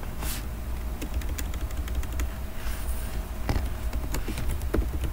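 Computer keyboard being typed on, a run of irregular key clicks as a short name is entered, over a faint steady hum.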